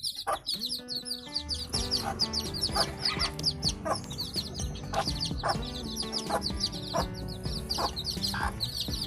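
Dense, rapid high chirping and peeping of many birds over a song's instrumental intro with sustained chords and a steady beat.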